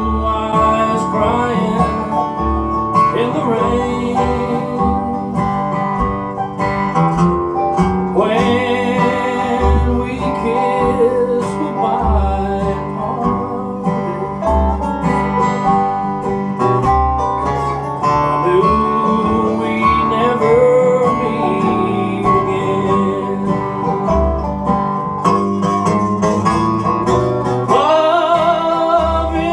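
A bluegrass band playing live on acoustic guitars and other plucked string instruments.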